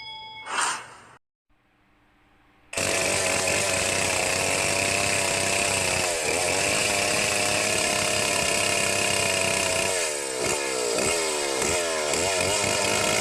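Stihl two-stroke chainsaw with a 36-inch bar running at high speed, cutting in suddenly about three seconds in. Near the end its engine speed drops and picks up again several times in quick succession.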